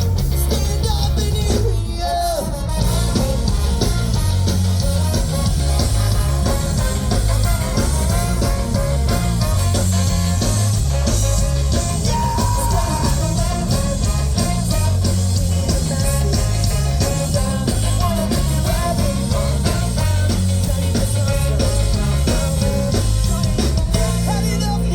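A pop-punk band playing live and loud: drums, bass and electric guitars, with sung vocals over them.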